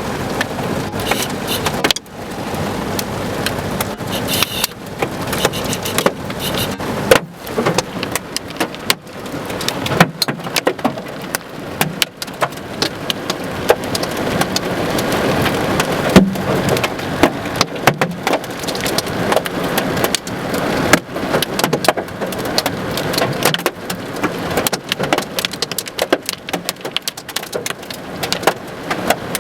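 Large hailstones and heavy rain pelting down: a dense, irregular clatter of sharp impacts over a steady hiss of rain.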